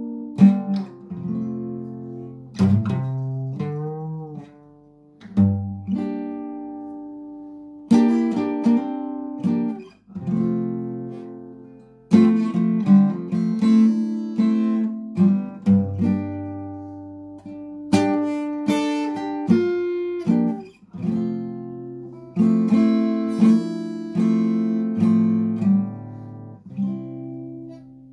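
Solo acoustic guitar playing a slow instrumental piece: chords plucked and left to ring out and fade, with quicker runs of notes in places.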